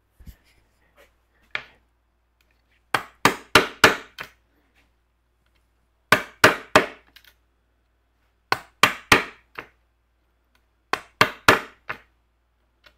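Wooden carving mallet driving a chisel into a board: four bursts of quick blows, four to six at a time, a few seconds apart.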